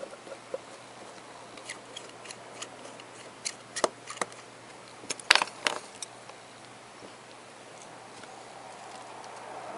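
Light metallic clicks and taps of watchmaker's hand tools on a pocket watch movement as the balance is removed: a scattered handful over a few seconds, the sharpest about five seconds in, then only faint background.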